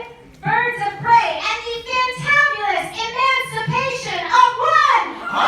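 A high voice speaking in a drawn-out, sing-song way, like a dramatic announcement of a title. A crowd starts to shout and cheer right at the very end.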